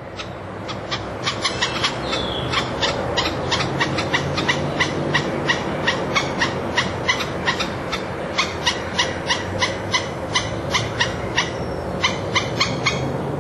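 Golden-fronted woodpecker calling: a long, steady series of short, sharp notes, about three a second, over low background noise.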